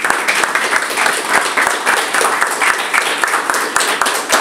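A small group of people clapping their hands in applause, a dense run of individual claps.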